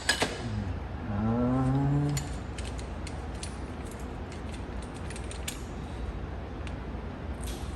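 Hand tools being handled and sorted in a tool box drawer: scattered light metal clicks and clinks. About a second in comes a brief rising tone lasting about a second.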